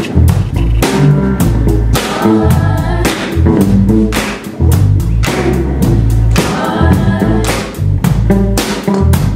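Live rock band playing: a drum kit keeping a steady beat under electric bass and electric guitar, with a group of women singing together.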